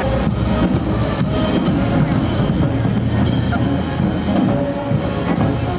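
Music with a drum kit keeping a steady beat, about two beats a second, over a heavy bass.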